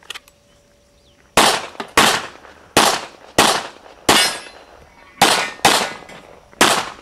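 Pistol firing eight shots in a practical shooting course of fire, starting about a second and a half in, spaced roughly half a second to a second apart with a longer pause in the middle, each shot trailing a short echo.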